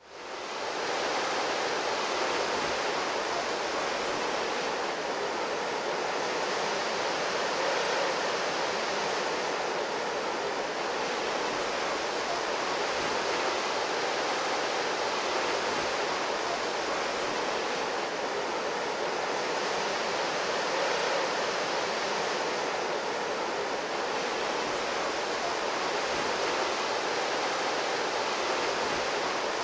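Anime sound-effect recording of rushing water: a steady, even hiss that rises in within the first second, with gentle swells every few seconds.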